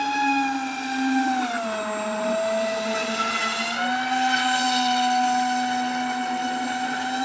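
Homemade RC air boat's electric motor and caged air propeller running with a steady high-pitched whine; the pitch dips about a second and a half in and climbs back about four seconds in as the throttle changes.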